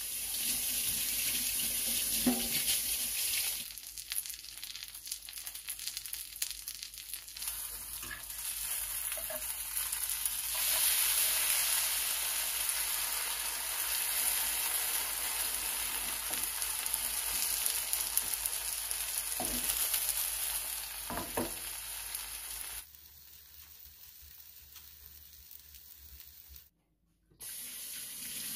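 Egg and greenbrier shoots sizzling in a nonstick frying pan, with a few taps and scrapes of a fork against the pan. Near the end a kitchen tap starts running into a steel sink.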